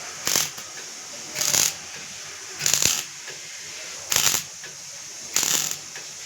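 MIG welder laying a series of short tack welds: five brief bursts of arc crackle, about one every second and a bit.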